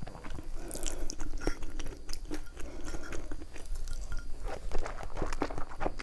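Close-miked chewing of food, with irregular crunchy bites and wet mouth sounds.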